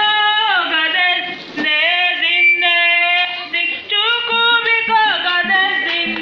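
A woman's voice singing with long held and gliding notes, over electronic keyboard accompaniment. From about four seconds in, a low keyboard note pulses in a steady rhythm underneath.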